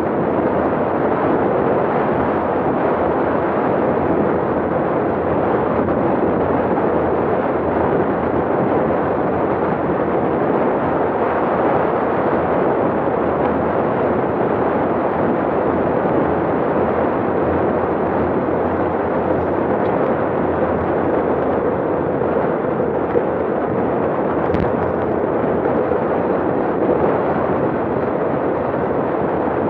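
Steady rush and buffeting of wind on the microphone of a handlebar-mounted camera on a road bike descending at about 30 mph.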